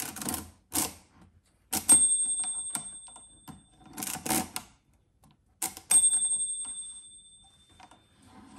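Pilot P-3 pinwheel mechanical calculator being cranked through simple additions, its crank and pinwheels clattering in short bursts. Twice, a turn is followed by a clear ringing tone that fades over about two seconds.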